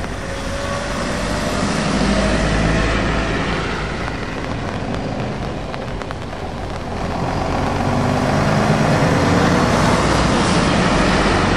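Volvo FH Globetrotter lorry's diesel engine running as it approaches and passes close by, growing louder over the last few seconds, with its tyres hissing on the wet road. A smaller Mitsubishi box truck is heard moving off at the start.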